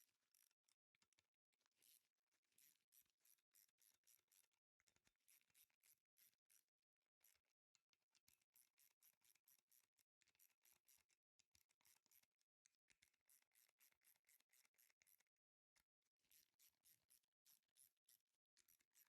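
Near silence, with faint, rapid, high-pitched scratchy ticking throughout.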